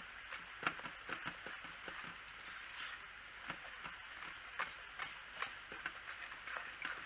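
Wire whisk stirring thick soap paste in a slow-cooker crock as alcohol is worked in: faint, irregular clicks and taps of the whisk wires against the crock.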